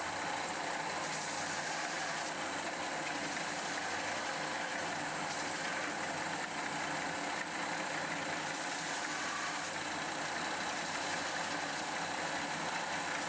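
Belt sander running steadily while a part is held against the belt to remove burrs, with a faint high whine that wavers slightly in pitch.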